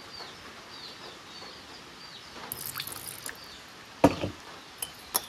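Metal spoon stirring strawberry syrup in a bowl: a soft liquid swish, then a sharp knock of the spoon against the bowl about four seconds in, followed by two lighter clinks. A bird chirps repeatedly in the first second.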